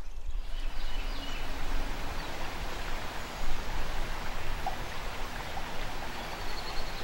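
Steady rushing of flowing river water, with a few faint high chirps near the end.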